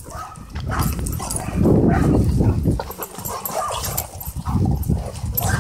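Two dogs play-wrestling up close, making rough, uneven play vocal sounds amid scuffling, with the loudest stretch about two seconds in.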